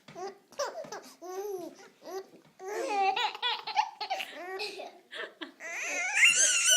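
Small children laughing and babbling in short, high-pitched bursts while they have the hiccups, with a loud squealing laugh near the end.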